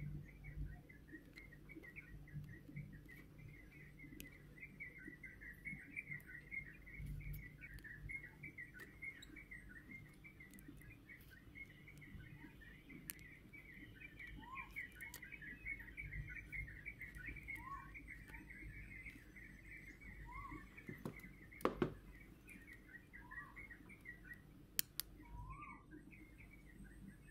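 Faint, steady bird chirping, with a short rising call repeated every few seconds in the second half. Scattered light clicks, and a sharper tap about 22 seconds in.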